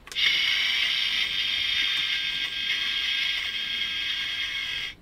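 Electronic sound effect from a NECA ED-209 figure, played through the toy's small built-in speaker: a steady mechanical whirring that starts just after a click and cuts off suddenly after about five seconds.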